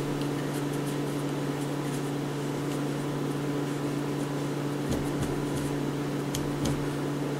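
A steady low hum with two constant tones, and a few faint scuffs and light knocks about five to seven seconds in as a cloth patch is wiped through the frame of a single-action .22 revolver with its cylinder out.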